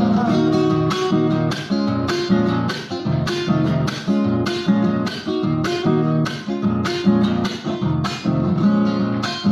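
Solo classical acoustic guitar strummed in a chacarera rhythm, an instrumental passage between sung verses, with sharp evenly spaced strums about three times a second.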